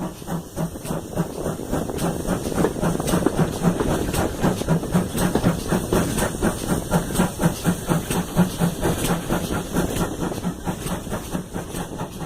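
GWR 94xx pannier tank locomotive 9466 working under steam, its exhaust beating in a quick, even rhythm of about four to five beats a second over steady steam hiss, loudest through the middle.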